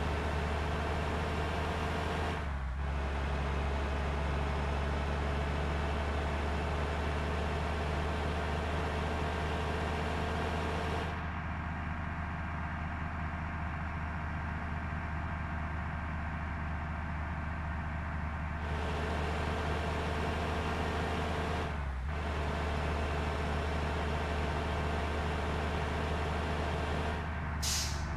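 Steady low mechanical drone with several steady humming tones, like a vehicle engine running at an even speed, with no revving.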